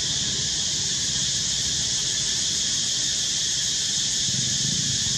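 Steady high-pitched drone of a forest insect chorus, unchanging throughout, over a low rumble.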